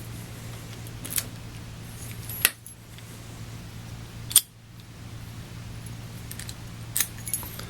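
Sharp metallic clicks from working a Master Lock laminated steel padlock with its key: four separate clicks spread over several seconds, the loudest two in the middle, over a steady low hum.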